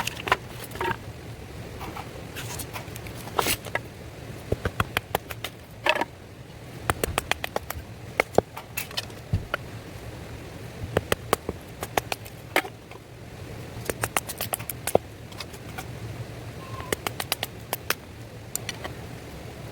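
Wood fire crackling: irregular sharp pops and snaps, sometimes several in quick succession, over a steady low hum.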